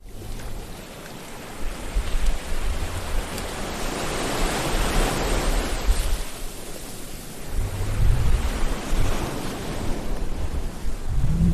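Sea waves washing onto a shore: a continuous rushing surf that swells about halfway through and again a little later, with a low rumble underneath.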